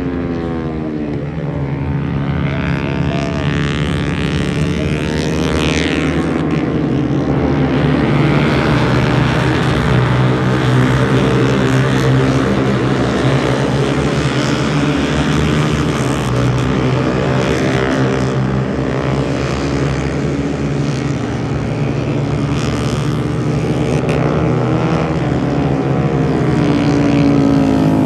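Several racing motorcycle engines running at high revs together, their pitches rising and falling as they accelerate and pass, over a steady low drone.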